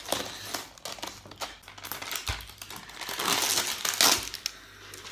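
Plastic and foil packaging of a supermarket tiramisù tray crinkling as it is unwrapped and its clear plastic cover pulled off, loudest about three to four seconds in.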